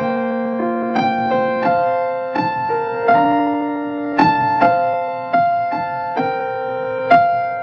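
Instrumental keyboard music with no voice: electric-piano-like notes and chords struck about every half second and left to ring.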